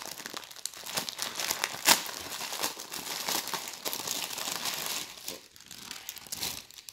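Clear plastic packaging crinkling and crackling as it is handled, with a sharper crackle about two seconds in, dying down near the end.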